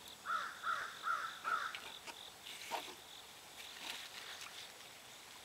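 Insects droning steadily in a high, even tone, with a bird calling four times in quick succession about a second in.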